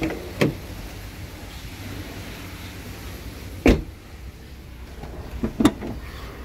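Toyota Yaris hatchback door handle and latch clicking, then the car door shut with a heavy thud a few seconds in (the loudest sound), and two quick clicks of the tailgate latch release near the end.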